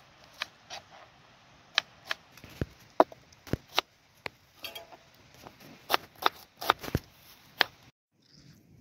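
Kitchen knife slicing red onion on a plastic cutting board: irregular sharp taps of the blade meeting the board, about two a second, stopping suddenly near the end.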